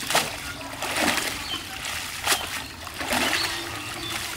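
Wet cast net being hauled out of a pond's shallow edge: water splashing and streaming off the mesh in about four surges.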